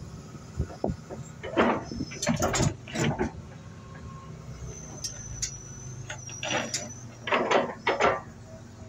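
Hitachi ZX250LCN-3 crawler excavator's diesel engine running steadily as the machine works its steel bucket, with several clanking, scraping bursts from the bucket and rock and a thin high squeal about five to seven seconds in.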